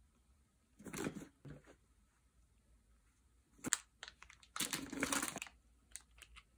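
Small plastic gummy-candy packets crinkling as they are squeezed and handled, the loudest crinkle lasting about a second a little past the middle. Shorter rustles of items being picked up come about a second in, and a few light clicks near the end.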